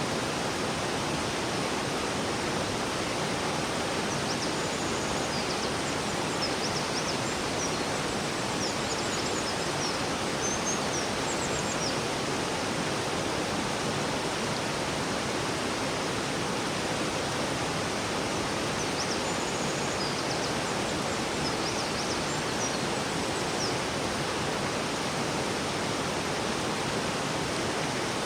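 River water flowing in a steady, even rush. Faint high chirps, like a bird calling, come in two spells, from about four to twelve seconds in and again around twenty seconds in.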